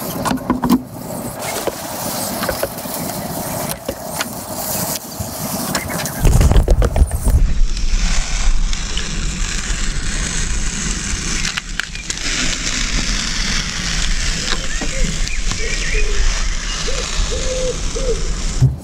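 Green painter's masking tape being peeled off a narrowboat's freshly painted steel side, with short ripping and scraping noises. A steady low rumble comes in about six seconds in and stays.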